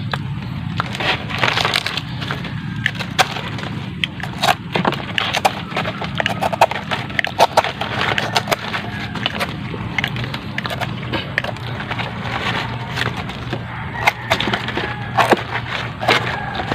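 Close-up chewing of crisp raw coconut heart (ubod), with many irregular sharp crunches. A steady low hum sits underneath.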